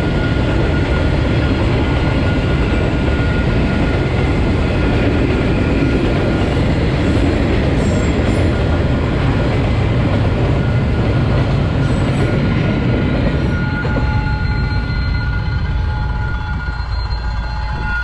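Freight train wagons, boxcars and container flatcars, rolling past close by with a loud steady rumble of wheels on rail and a thin steady high whine over it. The rumble thins out about fourteen seconds in.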